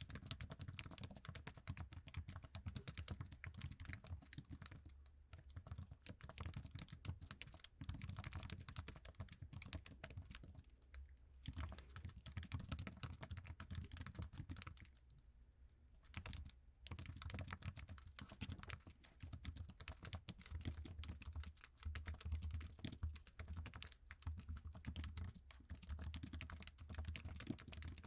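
Fast, continuous typing on an iMac's standard Apple keyboard, low-travel keys clicking in quick succession, with a brief pause about halfway through.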